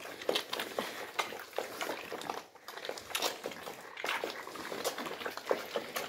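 Piglets eating wet, milk-based mash side by side from a trough: a dense, irregular run of slurps, laps and smacks.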